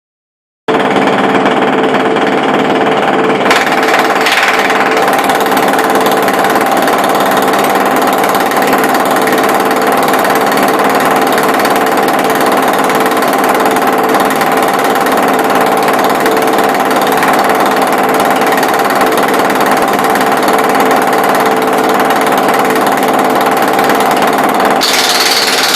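Automatic jackhammer running continuously: a loud, steady mechanical hammering noise with a steady hum underneath. It starts abruptly just under a second in.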